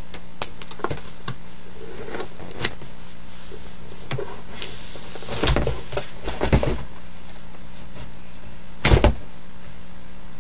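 Scissors cutting packing tape on a cardboard shipping box: scattered small snips and clicks, with a few louder scraping, rustling bursts of the box being handled midway and once more near the end, over a steady background hiss and faint hum.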